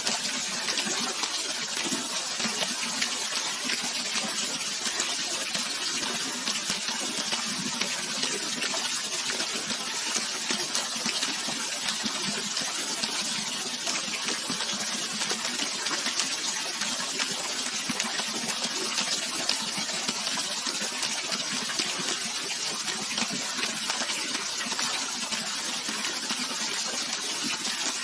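Running water rushing steadily, an even, bright splashing with no deep rumble.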